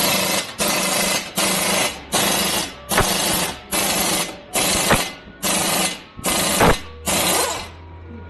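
Air impact wrench run in short, repeated bursts of about half a second each, roughly ten in a row, with a few sharp knocks among them, while undoing the front hub fasteners for a wheel bearing change.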